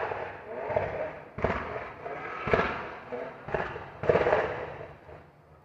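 Car exhaust backfiring in sharp, gunshot-like bangs, about five at uneven intervals, each trailing off briefly, fading out near the end.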